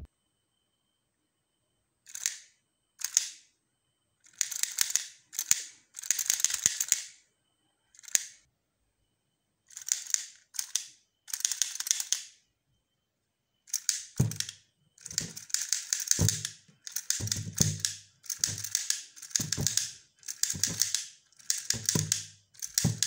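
Plastic Punchy Monkey candy toy worked in repeated bursts, its punching mechanism giving a rapid clicking clatter each time, with silent gaps between. From about 14 s in, the toy's gloves also drum on a rubber balloon, adding dull thuds to each burst.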